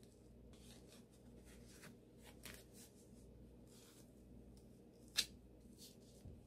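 Faint rustling and rubbing of a wrist brace as it is strapped around the wrist and hand, with one sharp click about five seconds in.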